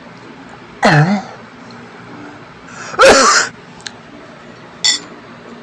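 A man's loud throat and vocal noises: a short falling-pitch grunt about a second in, a longer, harsher throat-clearing burst around three seconds in, and a brief sharp one near the end.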